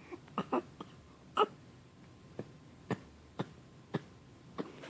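A string of short, sharp fake coughs, about nine of them at uneven intervals of roughly half a second, the loudest about one and a half seconds in.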